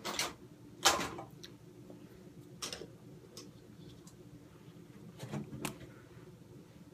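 A few sharp clicks and knocks of small makeup items being picked up and handled, the loudest about a second in, with quieter ones near the middle and toward the end.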